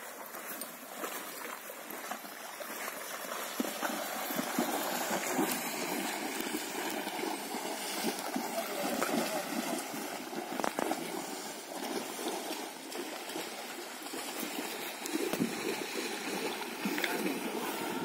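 Horses wading through a river, the water splashing and churning around their legs in a steady run of small splashes.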